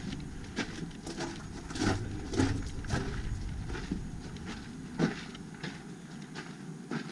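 Footsteps on a gravel and dirt path, about two steps a second.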